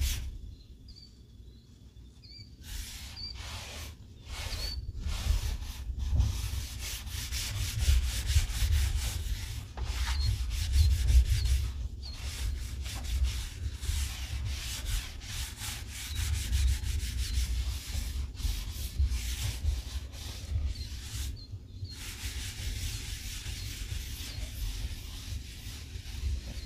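A wad of paper towel rubbing and wiping across the greasy steel cooktop of a Blackstone griddle, in repeated strokes with short pauses. It is quieter for the first couple of seconds, and a steady low rumble runs underneath.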